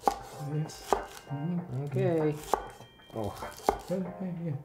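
Chef's knife chopping green onions on a wooden cutting board: four sharp knocks of the blade striking the board, roughly a second apart.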